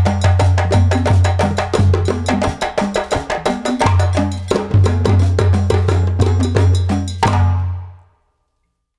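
Background music with a quick, even wood-block percussion beat over a steady bass line, ending about seven seconds in on a final hit that rings out and fades.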